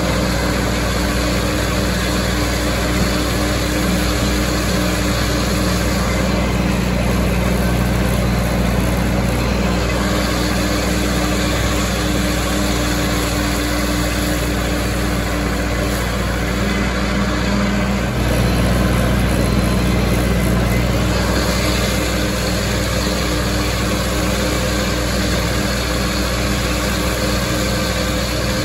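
Massey Ferguson 165 tractor running steadily under load while mowing hay, the engine holding an even speed.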